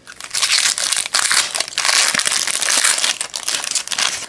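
A Topps Chrome baseball card pack's wrapper being torn open and crinkled in the hands: a dense run of crackling and rustling.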